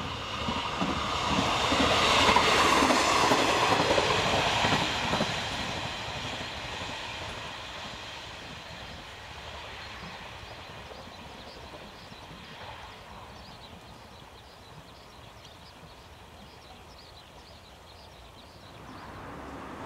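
Chizu Express HOT3500 series diesel railcar running past, its wheels clicking over the rail joints, loudest about two to four seconds in and then fading as it draws away.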